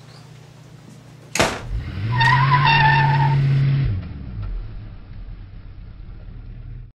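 A sharp bang, then a vehicle engine revving hard under a wavering squeal for about two seconds. The engine then drops away into a low rumble that cuts off abruptly.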